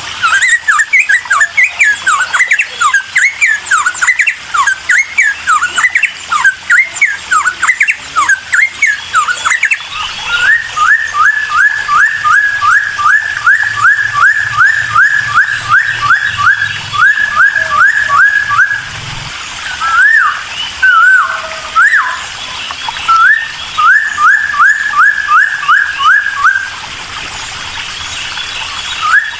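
A cucak timor singing loudly: first a varied string of quick whistled notes, then long runs of the same short rising note repeated about three times a second, broken by brief pauses.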